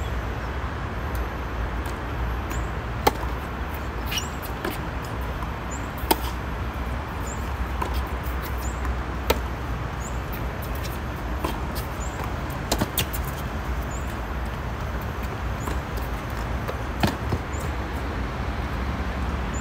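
Tennis rally: sharp pops of the ball being struck by rackets, alternating between near and far ends, over a steady low hum of road traffic. The loudest strikes come about every three seconds.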